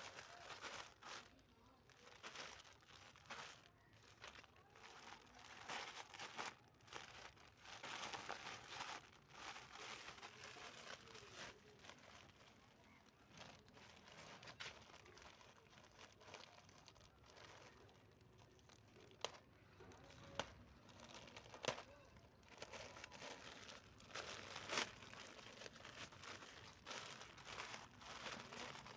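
Crinkling and tearing of a courier parcel's packaging as it is opened by hand, in irregular bursts with a few sharp clicks.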